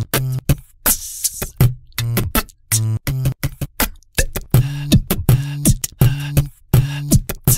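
Background music with a steady beat: sharp percussive hits alternating with short, low pitched notes.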